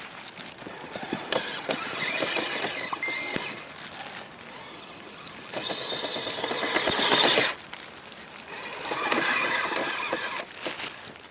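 Kyosho Blizzard RC snow cat driving, its electric motor and gearbox whining in spells, loudest a little after halfway, with scattered clicks and crackles from the tracks working through wet snow between the spells.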